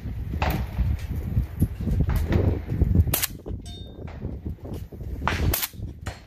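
Suppressed AK-pattern rifle fired in slow single shots a couple of seconds apart, each a sharp crack, with a brief metallic ring after one of them. Wind rumbles on the microphone.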